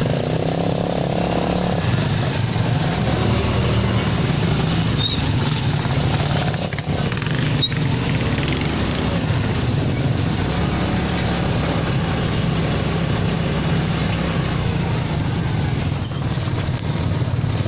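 Pickup truck driving in slow traffic: steady engine hum and road noise, with a brief sharp click about seven seconds in.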